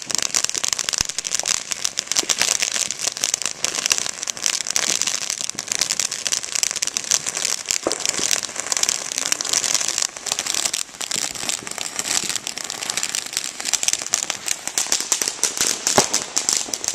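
Ground fountain firework spraying sparks: a continuous dense, rapid crackle over a high hiss.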